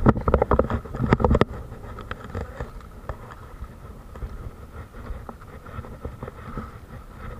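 Loud rubbing and knocking of a gloved hand against the camera for about the first second and a half, then a steady low rumble with a few faint clicks.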